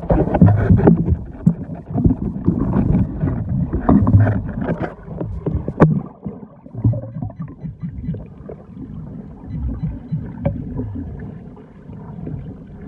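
Water sloshing and churning close to the microphone, rising and falling unevenly, with scattered sharp knocks.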